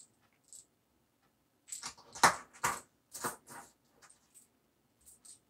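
Hard plastic lipless crankbait lures with treble hooks being set down on and picked up from a tabletop: a cluster of clicks and clatter about two seconds in, then a few faint ticks.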